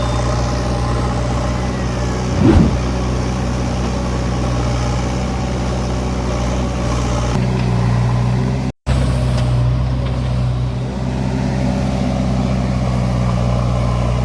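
An engine running steadily with a low hum, with a short knock about two and a half seconds in and a brief break in the sound shortly before nine seconds.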